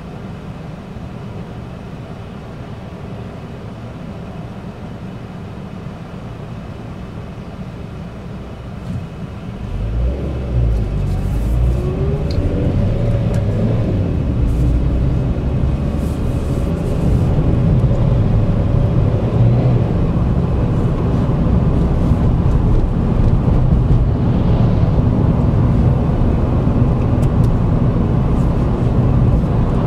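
Vauxhall Agila heard from inside the cabin: the engine idles quietly while stopped, then about ten seconds in the car pulls away, the engine note rising as it accelerates, and it settles into a louder steady rumble of engine and road noise while driving.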